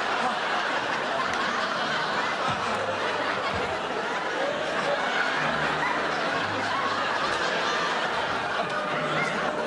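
A studio audience laughing steadily: continuous, many-voiced laughter and chuckling that swells at times.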